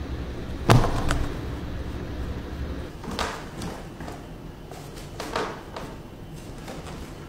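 A sharp, loud thud less than a second in, then a few softer knocks and thumps.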